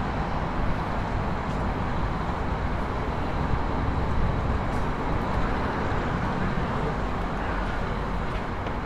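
Steady city street noise, a continuous low rumble of passing traffic with no distinct events.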